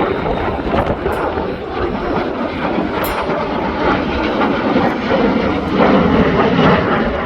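Jet airliner on approach to land, a steady engine rumble mixed with heavy wind buffeting the microphone.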